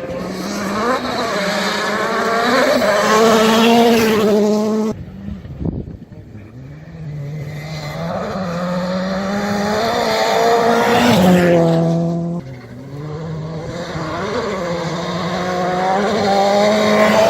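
Rally cars at full throttle, engines revving hard and changing gear as they come closer. There are three runs, each ending in a sudden cut, about 5 seconds in and again about 12 seconds in.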